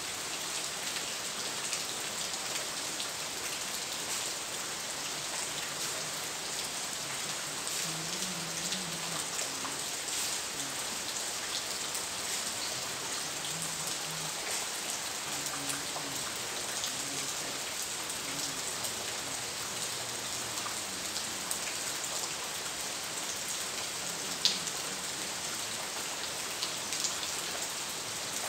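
Steady rain falling, an even hiss dotted with many small drop taps, with one sharper click a little over three-quarters of the way through.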